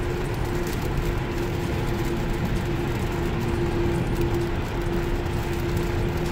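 Heavy rain and wet-road tyre noise inside a moving Tesla electric car, a steady even wash of noise with a faint steady hum through it.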